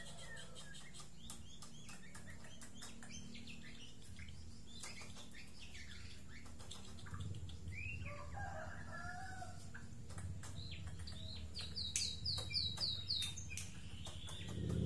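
White-rumped shama calling: scattered chirps, sharp clicks and short whistled notes, with a few lower notes about halfway and a quick run of about six repeated high notes near the end.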